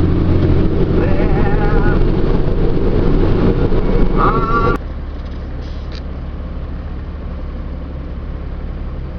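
Truck engine drone heard inside the cab, with a couple of short wavering tones in the first half; a bit under five seconds in the level drops suddenly to a quieter, steady low hum.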